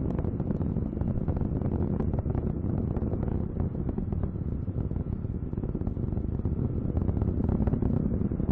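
Steady low rumble of the Ares I-X's solid rocket motor in flight, with a crackle of many small sharp pops through it.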